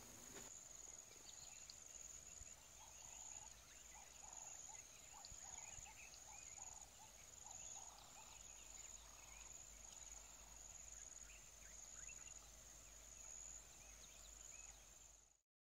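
Faint tropical forest ambience: a steady high-pitched insect trill with scattered soft chirping calls, cutting off abruptly near the end.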